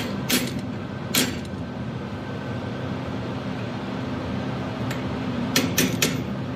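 Hand hammer striking a thin fuller held against a small forged steel turtle on the anvil horn: three blows in the first second or so, then three quick blows near the end. A steady hum runs underneath.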